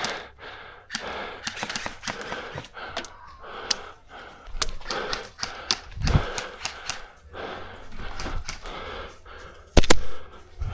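Airsoft guns firing in scattered, irregular clicks amid rustling movement noise, with one louder, sharper crack near the end.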